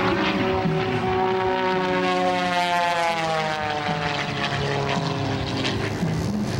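Pitts S-2S aerobatic biplane's six-cylinder Lycoming engine and propeller droning loudly as it flies a low pass. The pitch sinks toward the middle and then climbs again.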